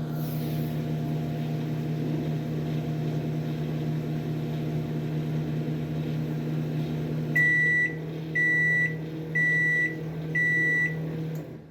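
Microwave oven running with a steady hum while heating food, then four beeps about a second apart signalling the end of the timed heating cycle; the hum stops near the end.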